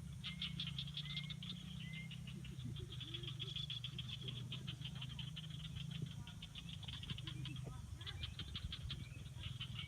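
A chorus of animal calls from the lake water: rapid trains of high clicking pulses, roughly ten a second, with a few short rising chirps in the first two seconds, over a steady low hum.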